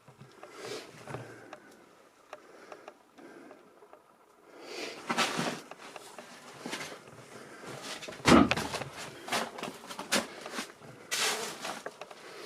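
Irregular knocks, crunches and rustles of someone moving through a cluttered room strewn with debris, with a louder thump about eight seconds in.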